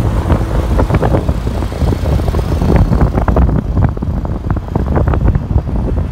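Wind buffeting the microphone with a heavy rumble and crackle, over the noise of street traffic passing close by.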